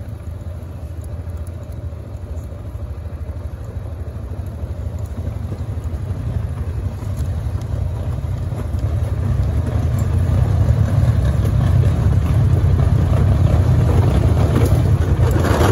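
ATV engine running while riding over a dirt trail, with a steady low rumble and road noise, getting louder from about halfway through as it picks up speed.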